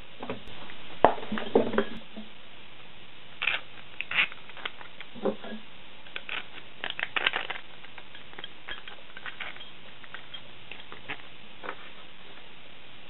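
Scattered light clicks, taps and clinks of steel rods and printed plastic parts being handled, with a sharp knock about a second in; the clatter is busiest in the first half and thins out after about eight seconds.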